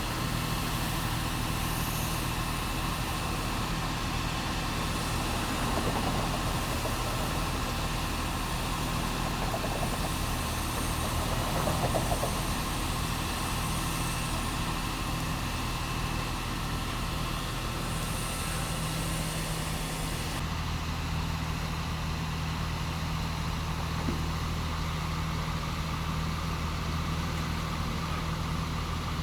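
An engine running steadily at idle, a constant low hum. About twenty seconds in, its pitch pattern shifts and the higher hiss drops away.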